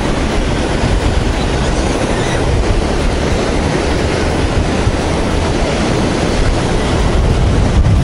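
Strong wind buffeting the microphone, a steady low rumble, over the wash of rough sea surf breaking on the shore.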